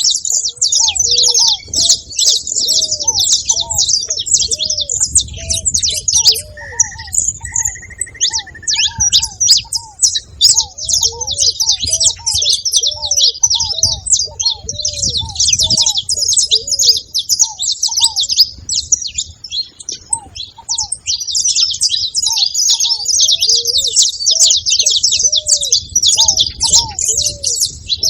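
Saffron finches chirping and chattering densely and without a break, with a ruddy ground dove's low, short coos repeated in series underneath. The coos pause for a few seconds past the middle.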